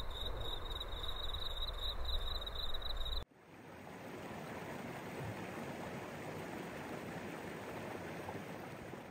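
Low rumble of a car driving, with a steady high trill of insects. After an abrupt cut about three seconds in, a steady, even rushing of a flowing stream.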